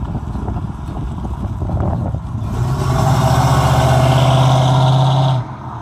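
1972 Ford Mustang Mach 1's 351 Cleveland V8 running through dual Flowmaster Super 44 mufflers as the car drives past close by. The exhaust note builds to a loud, steady drone about two and a half seconds in, then drops away suddenly near the end.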